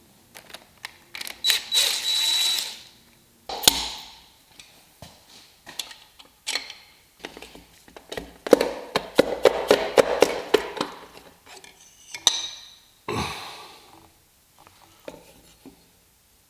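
Hand tools and metal engine parts clicking, knocking and scraping during the teardown of a Ford 302 V8. The sound is irregular, with a scraping rasp near the start and a rapid run of clicks for a couple of seconds in the middle.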